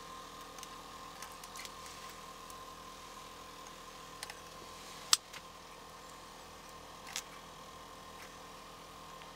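A steady low hum with a tone in it, broken by a few sharp clicks; the loudest click comes about five seconds in.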